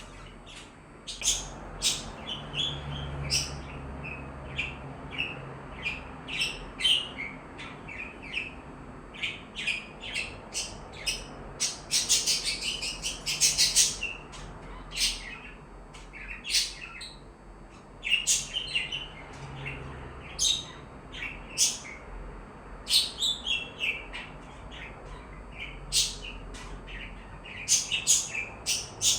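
Budgies chirping: a steady run of short, high chirps from more than one bird, with a dense burst of overlapping chatter about halfway through.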